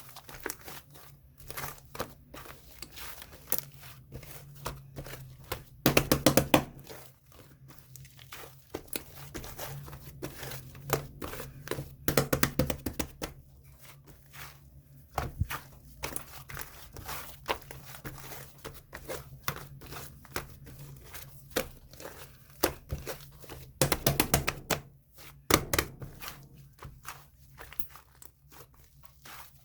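Pill slime being squeezed and worked by hand: a continuous run of irregular small clicks, pops and crackles, rising three times into dense bursts of loud crackling. A faint steady low hum runs underneath.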